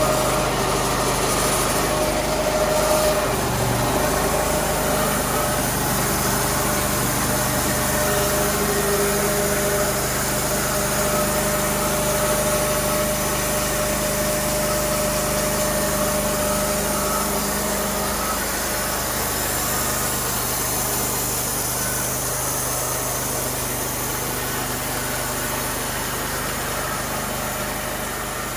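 The engine of a Cook's sawmill running steadily. Its note changes about two-thirds of the way through.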